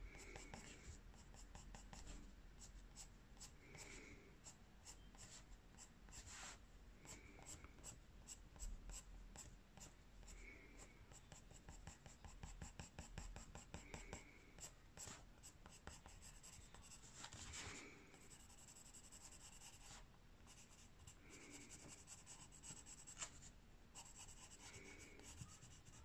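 Coloured pencil scratching lightly on paper in quick, short hatching strokes, faint and close. A faint short tone recurs every three to four seconds behind it.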